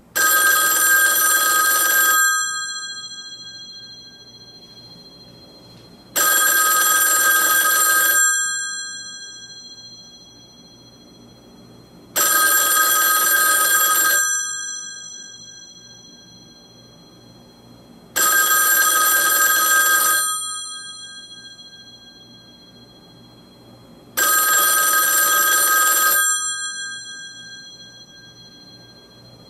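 Two Bell System rotary dial desk phones ringing together on their mechanical bells: five rings, each about two seconds long with about four seconds between, the bells ringing on and dying away after each ring.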